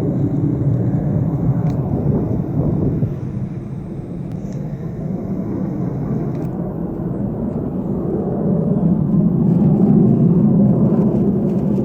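A strange, deep rumbling drone in the sky, steady and unbroken, dipping a little about four seconds in and swelling to its loudest about ten seconds in.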